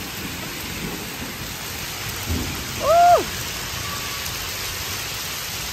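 Hailstorm with rain, falling steadily onto the ground and surfaces as an even, continuous hiss. About three seconds in comes one short vocal sound that rises and then falls.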